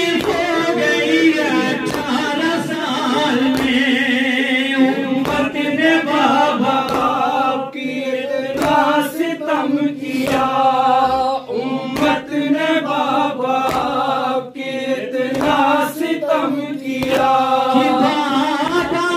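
Men chanting an Urdu noha (mourning lament) together, led by one voice on a microphone, with regular chest-beating slaps (matam) keeping time under the chant.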